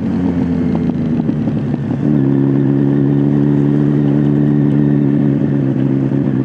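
Kawasaki Z900's inline-four engine through an SC-Project S1 exhaust, running under way. Its pitch shifts for the first couple of seconds, then holds steady.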